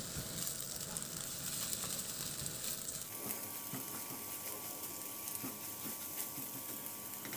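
Scrambled eggs frying quietly in oil in a nonstick pan: a steady soft sizzle, with faint light scrapes as a silicone spatula stirs and turns the curds.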